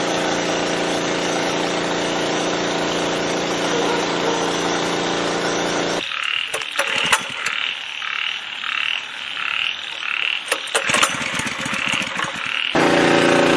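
Small engine of a portable water pump running steadily. About six seconds in it gives way to a frog calling over and over, about two calls a second, with a few knocks. The engine comes back near the end.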